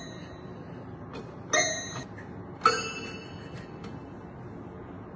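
Toy piano keys struck several at a time, twice: about a second and a half in and again near three seconds. Each cluster of bright notes rings briefly and fades.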